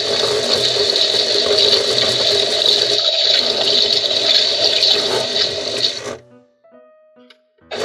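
Minnie Mouse toy washing machine running its water-and-washing sound effect, a loud steady hiss like running water. It cuts off suddenly about six seconds in, leaving a short quiet gap with a few faint tones, and starts again right at the end.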